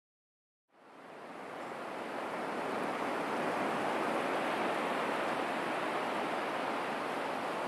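Surf breaking on a sandy beach, a steady rushing wash of waves that fades in about a second in.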